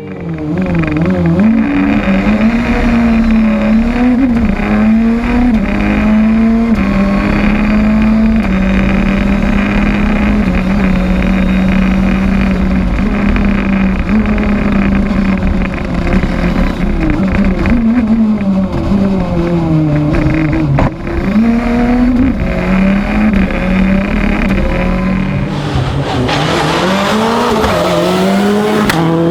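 Hill-climb race car engine at high revs. Its pitch climbs and falls again and again with throttle and gear changes, with a brief dip about two-thirds of the way through and a harsher, noisier sound near the end.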